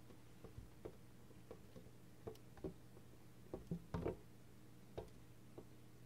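American robin pecking at window glass: about a dozen light, irregular taps, with a quick cluster of louder ones about two-thirds of the way through. Typical of a territorial robin attacking its own reflection.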